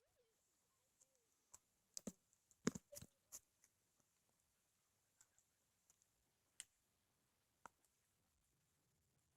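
Near silence broken by scattered faint clicks and taps, with a small cluster of them about two to three seconds in.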